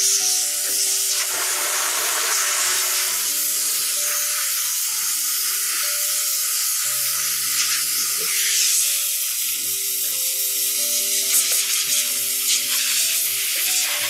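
High-pressure steam cleaner jet hissing steadily as it blasts a dental oral appliance clean for sterilisation, over background music of slow held notes.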